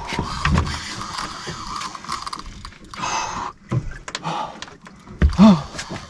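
Daiwa BG 8000 spinning reel being cranked under the load of a hooked bluefin tuna: a steady gear whir with many small clicks. A short vocal sound about five seconds in is the loudest moment.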